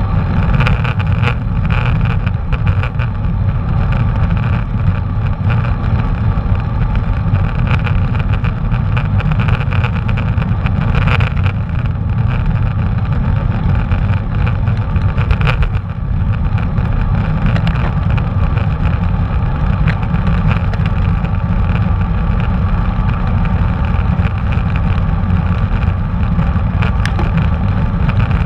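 Steady, heavy low rumble of wind buffeting the microphone and road noise from a moving bicycle, with faint light rattles now and then.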